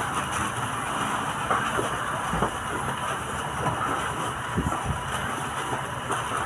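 Steady din of a busy shop counter, with a few short knocks and rustles as goods are handled and bagged.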